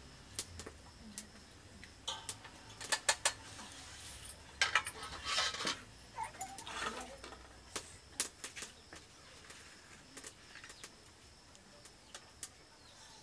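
Steel ladle and spoons clinking and scraping against stainless-steel pots and plates while food is served, in scattered sharp clicks with a longer scrape about five seconds in.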